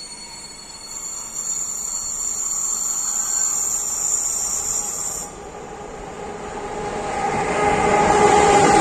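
A ČD Cargo freight train hauled by an electric locomotive approaches. A thin high-pitched squeal runs for the first five seconds or so and then cuts off. After that the locomotive's hum and the train's running noise grow steadily louder as it draws close.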